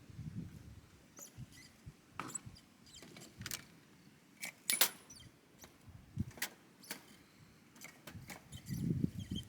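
Scattered light clicks and small metallic clinks a second or so apart, one ringing briefly about halfway through, with a short low rumble near the end.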